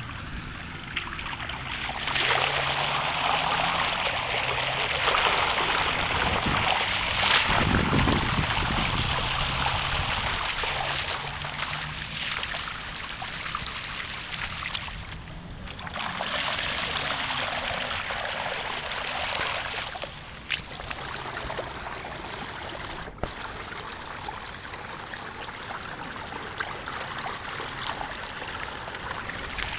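Rainwater running fast down a concrete roadside gutter, a steady rushing flow. It is louder for the first half, dips briefly about halfway, swells again, and is quieter through the last third.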